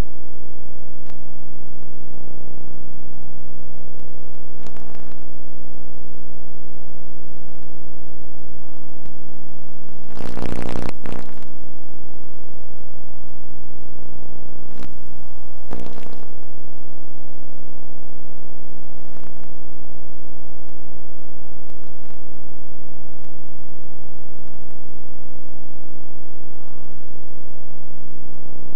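Loud, steady electrical hum with a stack of many overtones, unchanging throughout. It is broken by a few short rushes of noise, the biggest about ten seconds in and another around sixteen seconds.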